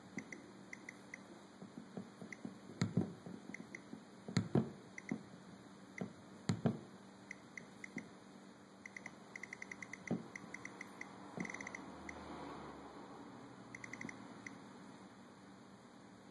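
Nest thermostat ticking softly as its outer ring is turned, the ticks coming singly and in quick runs of about ten a second, with several louder knocks or clicks from the unit being pressed and handled.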